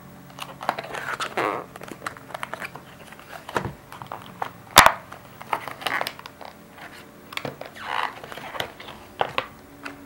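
Packaging handled by hand during an unboxing: plastic and cardboard crinkling and rustling, with scattered small clicks and one sharp click about five seconds in.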